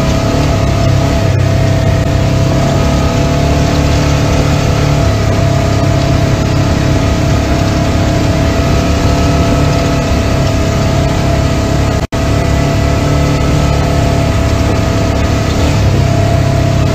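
Off-road side-by-side's engine running steadily as it drives along a dirt trail, heard from on board: a constant drone with a steady whine over it. The sound cuts out for an instant about twelve seconds in.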